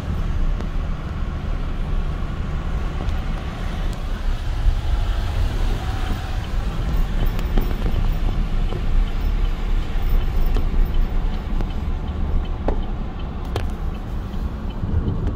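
Road noise heard from inside a moving car's cabin: a steady low rumble of engine and tyres on wet pavement, with a few faint clicks near the end.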